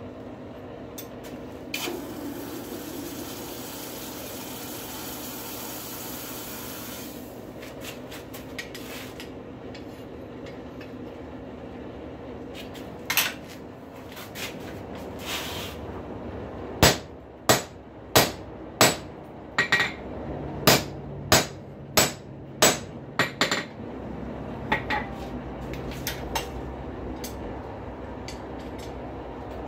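Hammer blows on a hot rail spike over an anvil: about a dozen sharp strikes in the second half, a little over one a second, with lighter knocks and clinks before and after. A steady background noise runs under it, with a hiss in the first few seconds.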